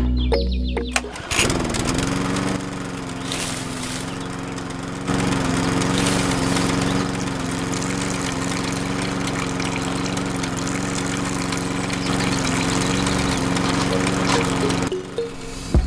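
Small engine sound for a miniature diesel-engine model belt-driving a toy juicer: it starts with a brief rise in pitch about a second in, runs steadily, and cuts off suddenly near the end.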